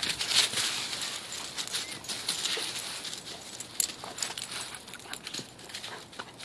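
Dry fallen leaves crackling and rustling as a Vizsla puppy noses and paws through them, with scattered small clicks and one sharp click a little under four seconds in.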